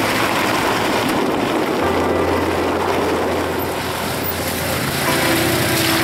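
A car driving along a gravel road: steady engine and tyre noise.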